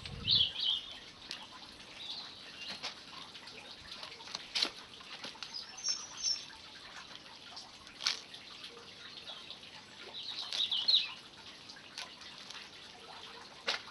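Small birds chirping now and then, loudest a little after ten seconds in, with a few sharp clicks and soft rustling from compost and plastic plant pots being handled.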